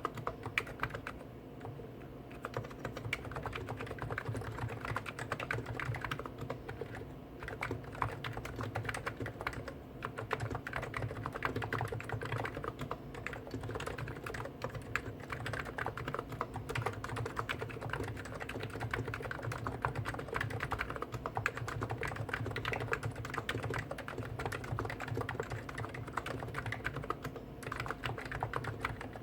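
Two Hansung GTune electrostatic capacitive keyboards, a CHF4 Snow White with 50 g switches and a CHF7 OfficeMaster with 55 g switches, typed on at the same time: a dense, continuous clatter of keystrokes.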